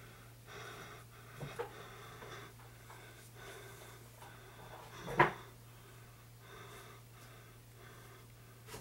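Heavy, quick breathing close to the microphone, a breath about every half second to a second, over a steady low hum. A sharp knock about five seconds in is the loudest sound, with softer clicks about a second and a half in and near the end.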